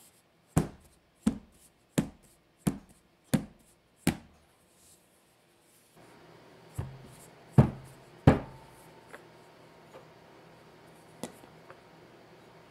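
A metal round cake pan filled with cocoa sponge batter knocked on the counter six times at an even pace, tapping out the large air bubbles before baking. A few seconds later come three heavier knocks, the last with a brief ringing note, then a couple of light ticks.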